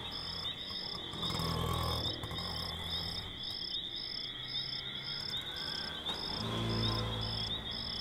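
Crickets chirping at night: one continuous high trill, with a second insect chirping steadily about twice a second over it. A faint low hum swells twice underneath.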